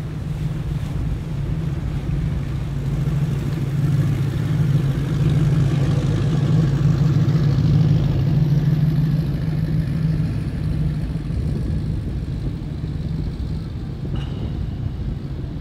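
Cigarette performance boat's engines running with a deep, steady rumble, growing louder as the boat passes close about halfway through and then easing off as it heads away.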